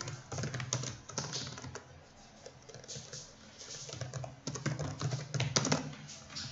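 Typing on a computer keyboard: quick runs of keystroke clicks in two main flurries, with a sparser stretch between them.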